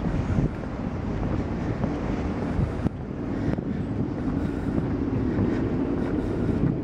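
Wind buffeting the microphone outdoors: a steady, fluttering low rumble.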